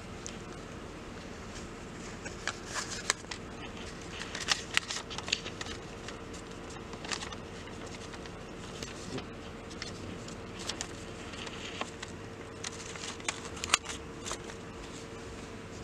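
A sheet of paper rustling and crinkling as gloved hands fold it: scattered short crackles and clicks, with a steady faint hum underneath.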